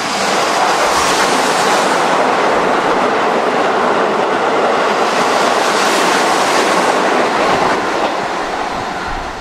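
Keihan electric train running past the platform, a steady loud rush of wheels and motors with wheels clattering over the rail joints, easing off near the end.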